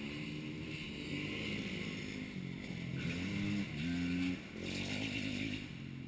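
Motocross dirt-bike engines revving out on the track, the pitch climbing and dropping in steps as the riders work the throttle.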